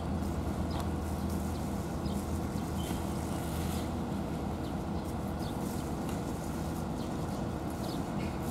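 A cat chewing and lapping wet food from a bowl, heard as faint short wet clicks every second or so, over a steady low mechanical hum.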